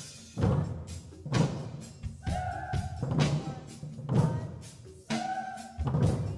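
Ensemble of students drumming on 5-gallon plastic buckets with mallets, striking together in a slow, steady 4/4 beat, about one hit a second, as a rhythm-reading exercise. A short held pitched tone sounds twice over the hits.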